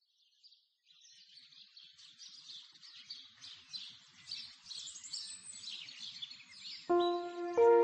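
Birds chirping, fading in out of silence and growing louder. Near the end, soft instrumental music enters with held notes.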